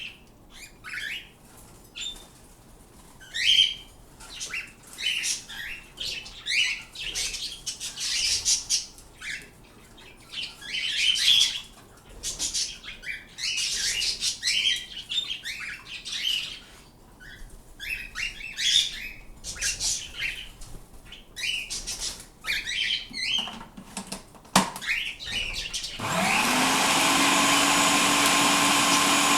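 Pet birds chirping and squawking in short, irregular calls. About 26 seconds in, an electric food chopper's motor switches on, rises quickly in pitch and runs steadily, chopping vegetables for bird chop.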